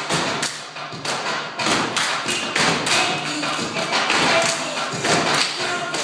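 Step team stepping: a rhythmic run of sharp foot stomps and claps on a wooden stage.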